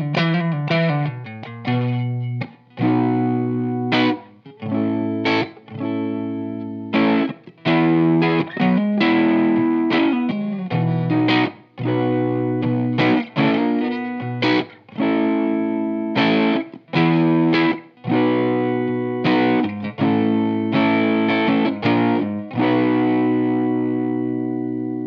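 Electric guitar through a germanium fuzz pedal (Bennett Custom Audio Fuzz Academy) and a valve amp, playing distorted chords in a stop-start riff, each struck and cut short. Near the end a final chord is left ringing and slowly fades.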